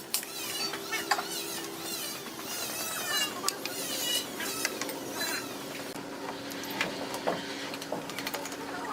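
Irregular sharp clicks and knocks of hand work over a steady low hum, with short high chirps mixed in.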